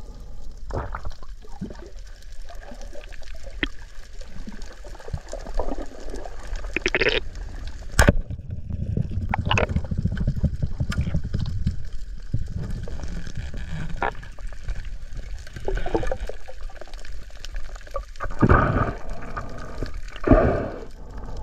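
Underwater sound of a freediver's camera: water sloshing and gurgling around it, with one sharp snap about eight seconds in as the speargun fires, followed by a few seconds of low rumbling water.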